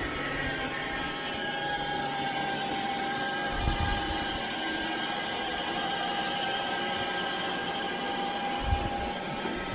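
Robot vacuum cleaner running on carpet: a steady whir with a high motor whine. There are two short low thumps, about three and a half seconds in and near the end.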